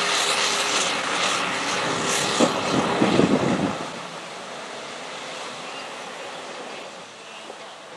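Dodge pickup truck's engine revving hard under load as its spinning tyres throw mud, then fading to a lower, steady drone about four seconds in as the truck pulls away.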